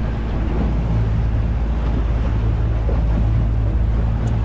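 Outboard motor running steadily as the boat moves through choppy sea, with water rushing past the hull and wind buffeting the microphone.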